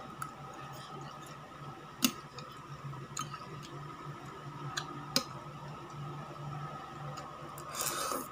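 Close-up eating sounds: chopsticks clicking against a ceramic bowl several times, loudest about two and five seconds in, with chewing between, then a hissing slurp of spaghetti noodles near the end. A steady hum runs underneath.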